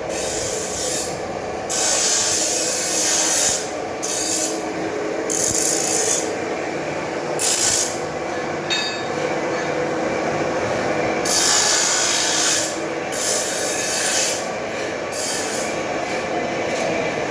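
Metal-cutting lathe facing a truck brake drum: the cutting tool scrapes steadily across the drum, with bursts of hiss that come and go every few seconds.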